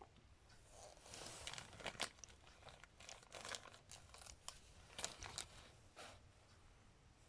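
Faint crinkling rustle and small clicks of hands handling small carburetor parts, between about one and six seconds in.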